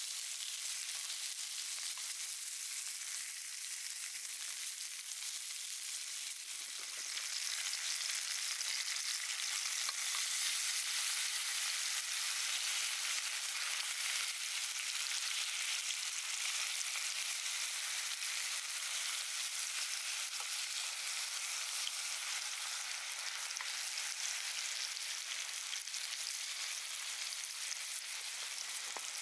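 Food frying in a pan over a campfire: a steady sizzle that grows a little louder about seven seconds in.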